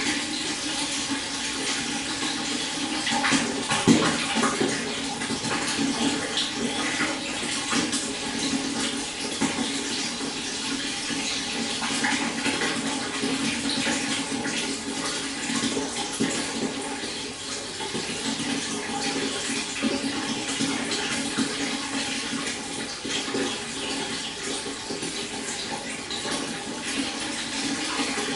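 Stream water flowing steadily, with many small splashes and trickles and one louder splash about four seconds in.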